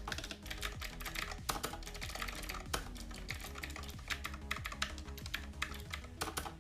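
Fast typing on a USB typewriter-style mechanical keyboard: a dense, irregular clatter of crisp keystroke clicks.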